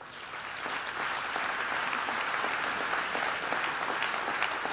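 Audience applauding, swelling in over the first second and then holding steady.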